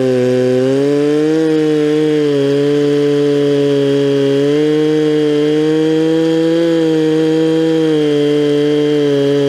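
Stihl 046 Magnum two-stroke chainsaw with a milling chain, ripping lengthwise through a log on a chainsaw mill. It runs steadily at high speed, its pitch dipping and recovering slightly under the load of the cut.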